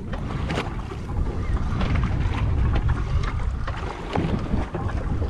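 Wind buffeting the microphone aboard a small boat at sea, with water sounds, gusting louder about two seconds in. Scattered small clicks and knocks sound over it.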